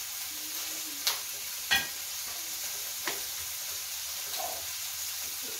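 Steady sizzling of food frying, with three sharp clinks of utensils about one, nearly two and three seconds in, the middle one the loudest and ringing briefly.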